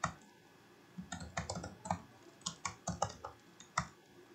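Typing on a computer keyboard: one keystroke at the start, then a quick run of keystrokes from about a second in.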